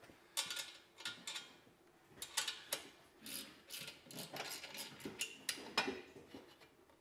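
Ratcheting combination wrench clicking as a bolt on the turbo downpipe joint is tightened, in quick runs of clicks stroke after stroke with short pauses between.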